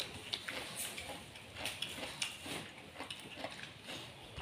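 Chopsticks clicking and tapping against porcelain bowls, several light, irregular clicks a second, with eating noises.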